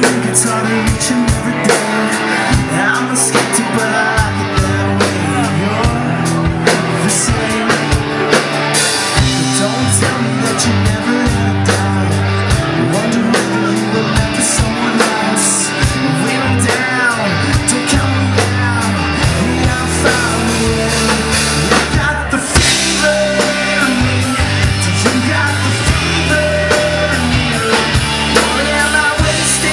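Live rock band playing in a small room: drum kit and guitars with a lead voice singing.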